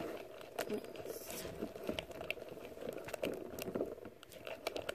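Fluffy slime of glue and shaving cream being stirred with a wooden stick in a glass bowl, giving a run of quick, irregular sticky clicks as the air-freshener activator is mixed in.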